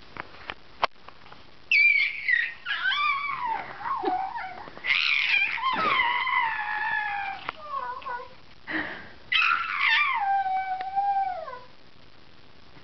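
Young baby cooing and squealing in a series of long, high-pitched vocal glides, several falling in pitch, with short breaks between them. A few light clicks come just before the vocalising starts.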